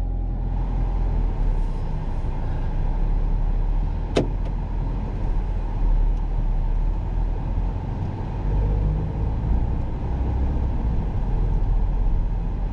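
A car being driven, heard from inside the cabin: a steady low rumble of engine and tyre noise, with a single sharp click about four seconds in.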